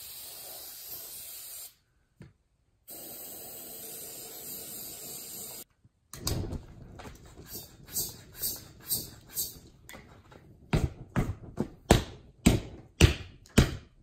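An aerosol can hissing as starting fluid is sprayed into the bead of a tubeless lawn tractor tire, in two long sprays. After a brief break, a floor-standing bicycle pump being worked in quick strokes, about two a second and getting louder, to inflate the burning tire and seat its bead.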